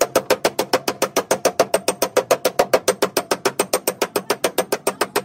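A wooden-handled hammer striking a Toyota Fielder's steel rear quarter panel in a fast, even run of about seven or eight blows a second. It is working torch-heated spots on the dented panel, the heat-shrinking stage of the dent repair.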